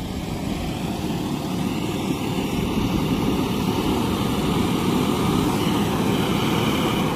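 John Deere 5405 CRDI tractor's diesel engine running steadily under load as it pulls a rotavator through a flooded paddy field, puddling the wet soil.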